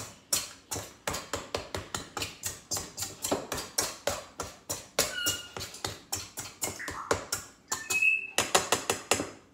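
A pastry blender cutting butter into flour in a stainless steel mixing bowl, its blades striking the bowl in sharp clinks about three or four times a second.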